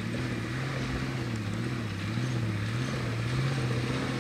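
Off-road vehicle's engine running at steady low revs, its pitch wavering slightly up and down.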